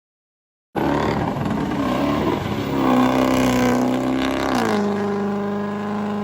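6.0 Power Stroke V8 turbo-diesel engine running, cutting in abruptly under a second in; its speed lifts a little around three seconds, then drops and settles into a steady lower idle near the end.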